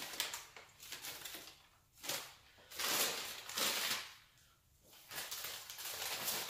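Newspaper sheets rustling and crinkling as they are handled and shaken over a plastic tub to knock out crickets caught in the paper. The sound comes in three stretches, with short lulls about two seconds and four and a half seconds in.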